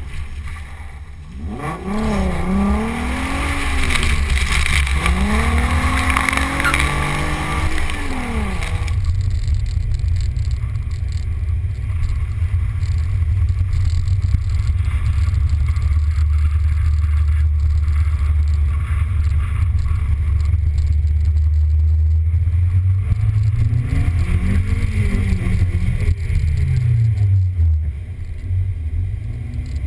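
A car's engine revving up and down repeatedly as it slides sideways in a drift on wet pavement, with the hiss of water spray from the tyres. From about nine seconds in there is a steady low rumble of a car driving, with one more rev rising and falling near the end.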